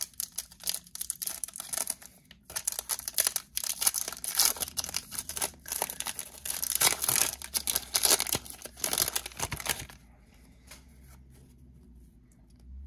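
Foil Topps Chrome trading-card pack wrapper being torn open and crinkled while the cards are slid out and handled. The dense crackling stops about ten seconds in.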